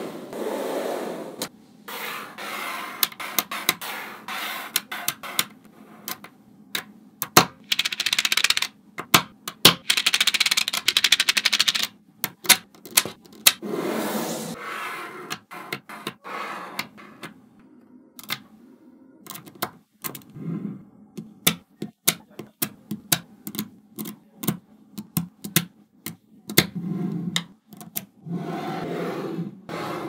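Small magnetic balls clicking and snapping together as they are pressed into panels and columns, with spells of rattling as clusters of balls shift and roll against each other.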